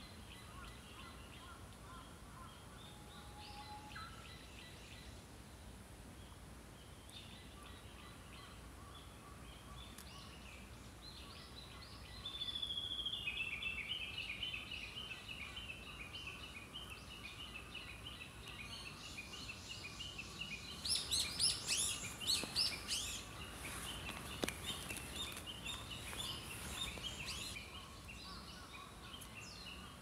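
Small songbirds calling over a faint steady hiss. About twelve seconds in, one bird gives a long, rapid trill that falls slightly in pitch. Later, a burst of loud, sharp chirps comes about two-thirds of the way through.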